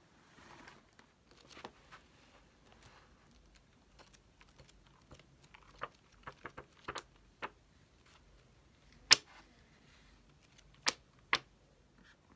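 Irregular light clicks and taps of small objects handled on a desk, with a few sharper knocks, the loudest about nine seconds in and two more near the end.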